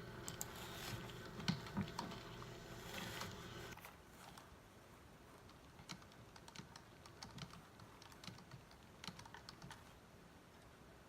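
Typing on a computer keyboard in short, irregular bursts of light clicks. A faint steady hum runs underneath and stops about four seconds in.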